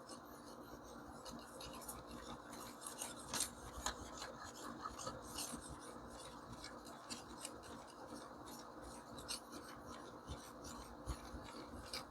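A 600-grit sharpening stone on a TS Prof Kadet Pro fixed-angle sharpener rubbing along a knife edge in the final passes, a steady scraping with a few sharp clicks.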